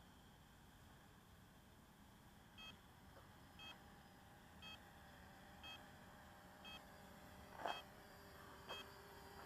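Faint short electronic beeps, one about every second, starting between two and three seconds in, over near silence; one beep near the end comes with a sharp click.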